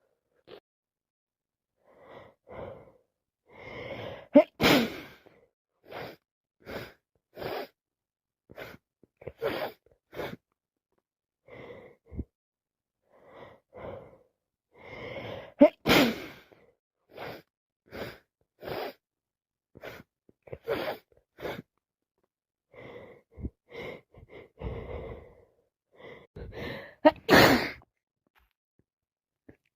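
A person with a head cold sneezing three times, about 12 seconds apart, each sneeze preceded by a build-up of catching, gasping in-breaths, with many short sniffs in between.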